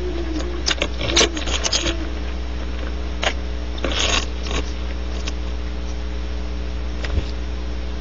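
A barn owl moving about, making a run of short scratchy clicks and scrapes in the first two seconds and again around four seconds, over a steady electrical hum from the camera's microphone.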